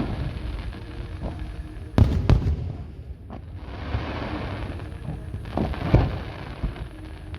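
Fireworks shells bursting overhead. Two loud booms come close together about two seconds in, a lighter bang follows about a second later, and another loud boom comes near the end.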